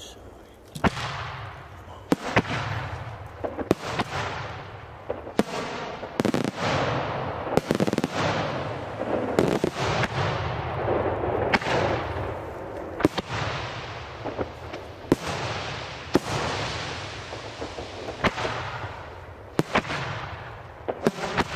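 Aerial firework shells bursting in an uneven volley, about twenty sharp bangs spaced half a second to two seconds apart. Each bang trails off in a long fading rumble, and a dense hiss fills the gaps between them.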